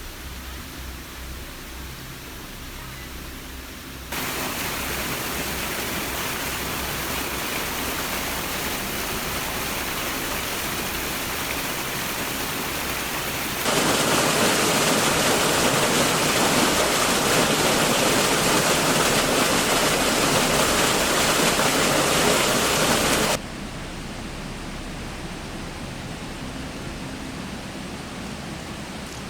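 Steady rushing noise with no clear pitch. It jumps louder suddenly about four seconds in, jumps louder again about fourteen seconds in, and drops back about twenty-three seconds in.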